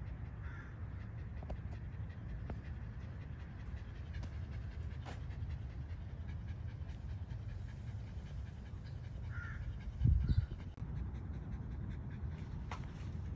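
Miniature Schnauzer panting, over a steady low rumble, with a loud low thump about ten seconds in.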